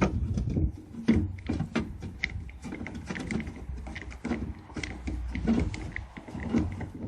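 Irregular clicks, taps and knocks of hands fumbling with a screw and metal parts at a van's door-handle mount, as a screw is tried one-handed and will not catch.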